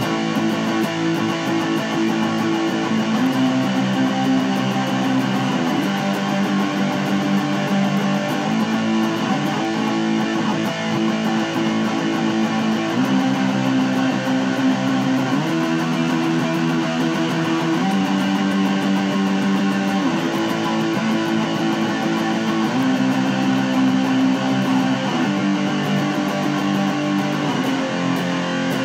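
Electric guitar strumming a slow chord progression, each chord held and ringing, changing about every two to three seconds.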